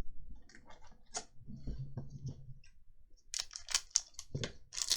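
Trading cards handled by hand: soft clicks and slides as cards are flicked through, then a denser run of sharp crackling rustles from a little past halfway.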